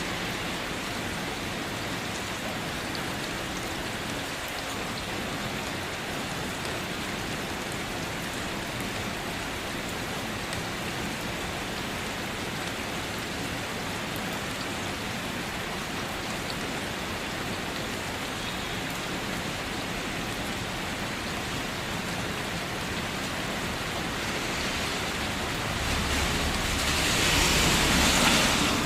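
Steady rain falling, an even hiss that swells louder for a couple of seconds near the end.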